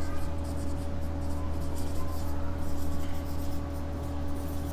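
Marker pen writing on a whiteboard: a quick run of short scratchy strokes as words are written, over a steady low hum.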